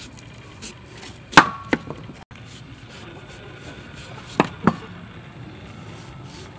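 Kitchen knife slicing the rind off a cantaloupe: crisp cutting snaps in two short clusters, the first the loudest, about a second and a half and four and a half seconds in.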